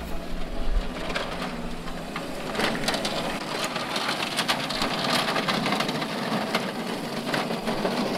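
Electric Crazy Cart driving on a rough, leaf-strewn driveway: its small hard wheels crunch and crackle over grit and dry leaves, with many small clicks, under the whir of its new 36-volt electric motor.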